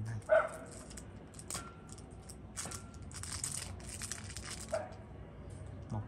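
Handling noise from Zippo lighters and their packaging: scattered clicks and knocks with bursts of crinkling between about one and a half and four and a half seconds in. A loud short sound comes about a third of a second in.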